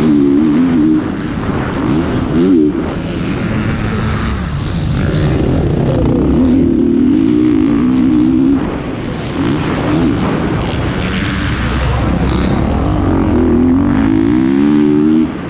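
Motocross bike's engine heard from the rider's onboard camera, revving up and dropping back again and again as the rider accelerates and shifts around the track, with a brief dip near the end.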